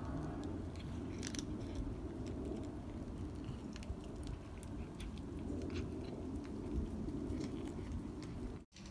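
Tabby cat crunching dry cat food, with irregular small crisp crunches over a steady low background hum.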